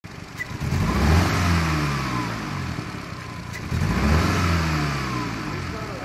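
Skoda Octavia's turbocharged 1.8 TSI (EA888) four-cylinder engine is revved twice, each time rising quickly and then slowly falling back. The engine is misfiring, which the owner puts down to the stock ignition coils and spark plugs.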